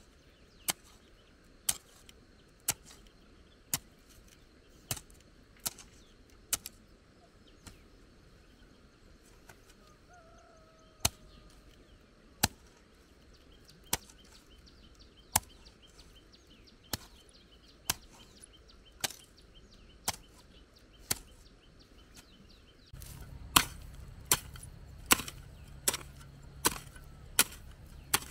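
Hand hoe chopping into grassy soil: sharp single strikes about once a second, with a few seconds' pause in the middle. Near the end the strikes come faster and louder.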